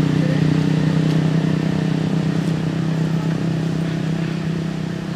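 A motor vehicle's engine running at a steady pitch, slowly fading.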